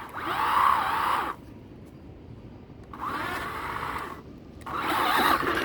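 An electric RC car's motor and drivetrain whining in three revving bursts, the pitch rising and falling with the throttle; the middle burst is quieter.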